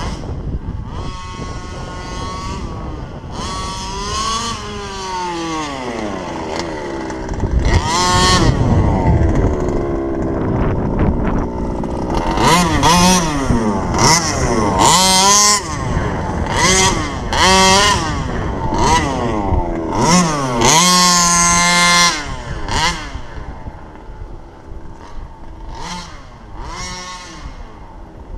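Two-stroke 29cc reed-valve gas engine of an HPI Baja RC car being driven, revving up and down in repeated throttle bursts with the pitch rising and falling. It is loudest in the middle stretch and grows quieter near the end as the car runs off.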